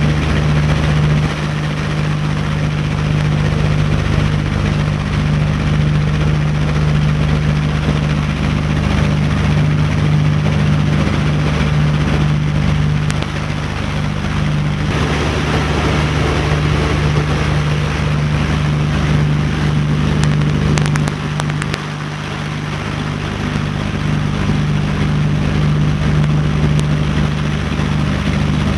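Steady drone of a B-25 Mitchell's radial piston engines heard from inside the cabin in flight, with a strong low hum; the level dips briefly about two-thirds of the way through.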